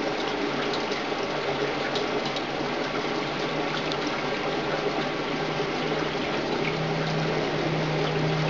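Oxyhydrogen (HHO) gas bubbling steadily up through water from a submerged diffuser in a glass tank, with a low steady hum underneath that grows stronger about seven seconds in.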